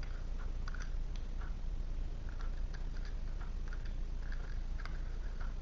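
Faint scattered clicks and soft rustles of tarot cards being handled, over a steady low hum.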